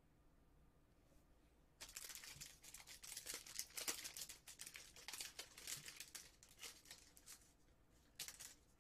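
Plastic trading-card packaging crinkling and rustling as it is handled, starting about two seconds in and dying away around seven seconds, with a couple of sharp clicks near the end.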